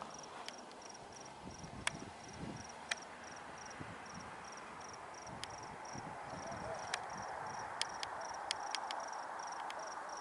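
A cricket chirping steadily, short high-pitched chirps at about three a second, with a few sharp clicks here and there.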